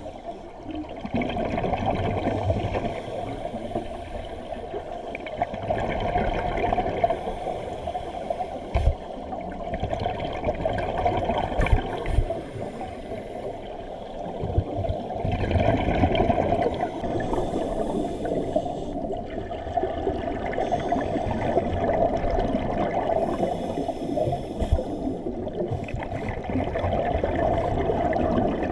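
Scuba diver breathing underwater through a regulator: a hissing inhalation every four to five seconds, alternating with the bubbling gurgle of exhaled air, with a few short low knocks.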